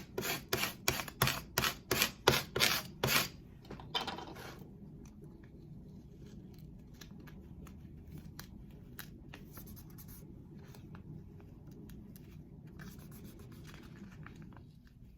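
About a dozen quick, crisp rubbing strokes, roughly three a second, as transfer mask is pressed and rubbed down onto the wooden sign to apply the cut vinyl lettering. They stop about four seconds in, leaving a faint low room hum.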